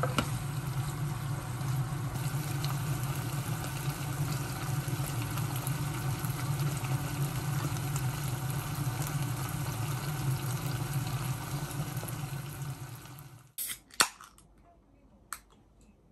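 Food sizzling as it fries in a pan, with a steady low hum under it. The sizzle stops abruptly about 13.5 seconds in, and two sharp clicks follow.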